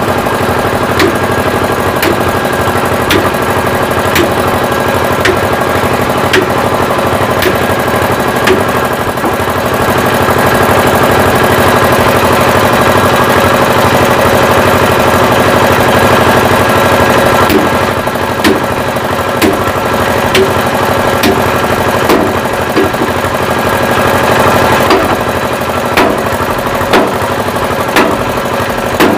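Sledgehammer blows on a dump truck's steel chassis, about one strike a second, over an engine running steadily.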